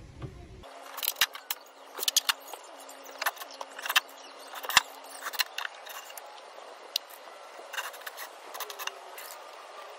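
Irregular sharp clicks, taps and light scraping as screws and a cordless drill are handled against wooden boards, with no drill motor running.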